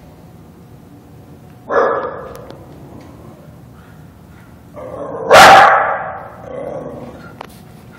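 A dog barking twice: a short bark about two seconds in and a louder, longer one a little past halfway.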